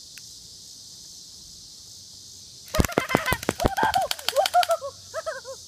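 Airsoft P30 pistol firing a full-auto burst: a rapid string of sharp clicks, about ten a second, starting about halfway through and lasting about two seconds.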